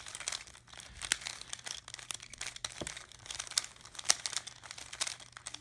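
Rubik's Cube being turned by hand: a quick, irregular run of plastic clicks and clacks as its layers are rotated.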